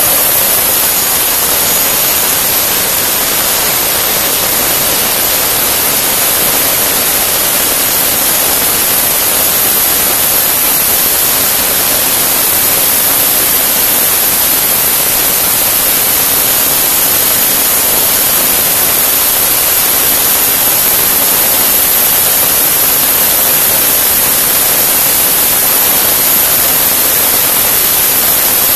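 Turbomeca Astazou 3N2 gas turbine running steadily on a test bench: a loud, even rushing hiss with a steady high whine above it.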